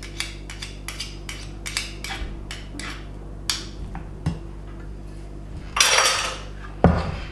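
A spoon clicking and tapping against a jar and bowl in a quick series of light taps as mustard is spooned out. About six seconds in comes a brief louder noise, then a single thud.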